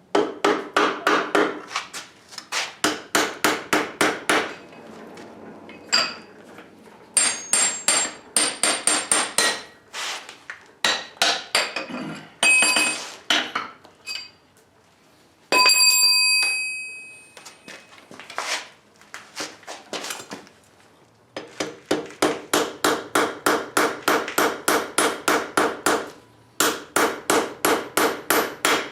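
Blacksmith's hammer striking steel on an anvil in fast runs of blows, about four to five a second, with short pauses between runs. Near the middle one strike leaves a long ringing clang that slowly dies away.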